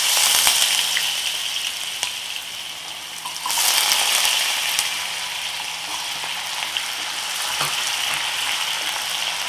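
Diced potatoes, freshly drained from water, dropped into smoking-hot oil in a nonstick kadhai, sizzling loudly at once. A second batch goes in about three and a half seconds in and the sizzle swells again, then settles to a steady frying hiss with a few taps of a wooden spatula.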